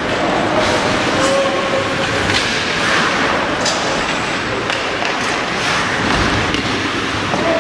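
Ice hockey game in play in a rink: skate blades scraping and carving the ice and sticks clacking on the puck, a few sharp strokes a second over steady arena noise.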